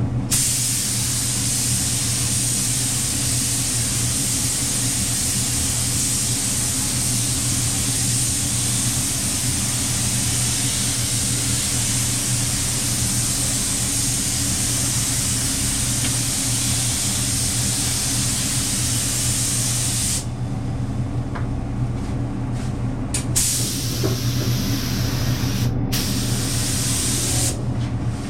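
Spray gun hissing steadily as primer is sprayed onto car body panels, then stopping and starting in short bursts over the last several seconds as the trigger is let off and pulled again. A steady machine hum runs underneath.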